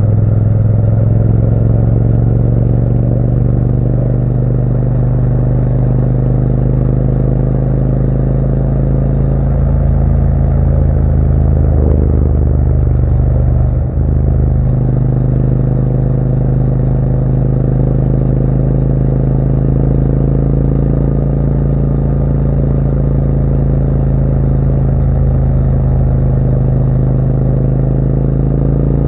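Motorcycle engine running steadily under way, with a brief drop in engine note about halfway through, as at a gear change or throttle lift.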